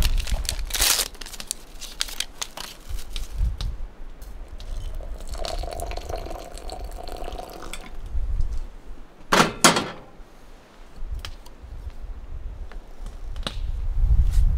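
A glass jar set down on a wooden cutting board, a paper tea packet torn open about a second in, then hot water poured from a kettle into the jar for a couple of seconds. A sharp clatter comes about nine and a half seconds in, with a low wind rumble on the microphone throughout.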